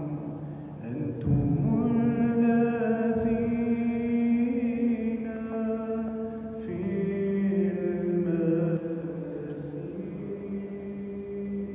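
A man chanting solo in long, held notes, moving to a new note about a second in and again around six and a half seconds.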